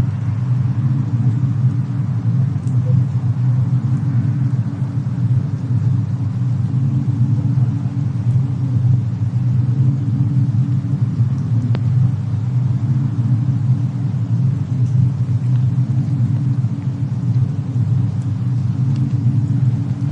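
Fireplace and snowstorm ambience: a steady low rumble with a few sparse, faint crackles, one clearer about twelve seconds in.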